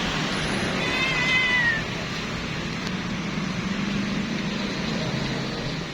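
Kitten meowing once, a single call of about a second that falls in pitch at the end, over a steady low hum.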